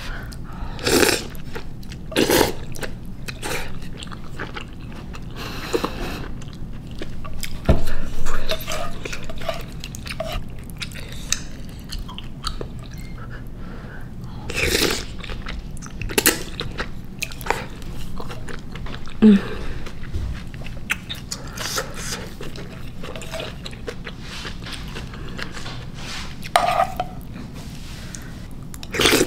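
Close-miked mukbang eating of spicy instant ramen noodles in broth: several short, loud slurps of noodles spread through, with wet chewing between them.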